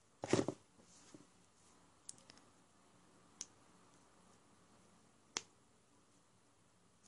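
Handling noise from a small mascara tube as its brush wand is pulled out: one short knock about a third of a second in, then a few light clicks spread over the next several seconds.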